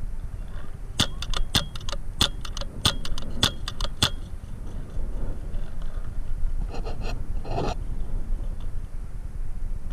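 Rapid string of sharp paintball marker shots, more than a dozen in about three seconds, followed by a few softer rattling sounds, over a steady low rumble.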